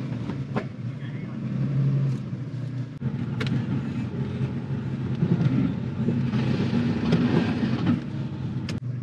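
Nissan Xterra's V6 engine running at low speed on a dirt trail, heard from inside the cab. About three seconds in, the sound cuts to another truck's engine, the Ford Raptor's V8, also running at low speed.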